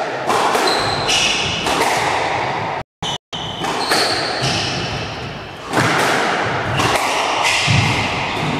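Squash rally: racket strikes and the ball smacking the walls, echoing around the court, with short shoe squeaks on the wooden floor between the hits. The sound cuts out twice, briefly, about three seconds in.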